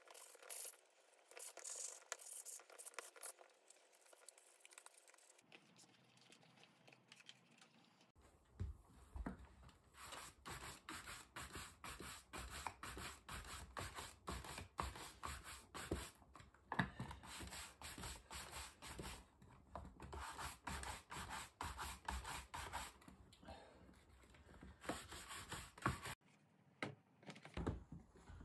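Steel axe head being buffed by hand with a pad: quick back-and-forth rubbing strokes that start about a third of the way in and stop shortly before the end, with fainter handling and rubbing before them.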